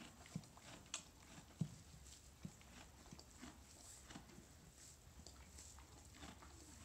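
Faint, scattered thuds and straw rustling as a young foal shifts its hooves in a straw-bedded stall. The loudest thud comes about a second and a half in.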